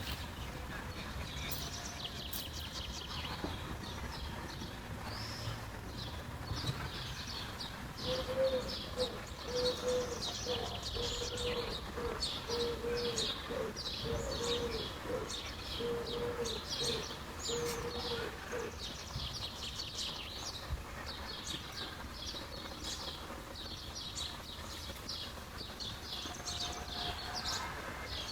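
Small birds chirping and twittering steadily, with a low call repeated evenly over and over from about eight seconds in until about eighteen seconds.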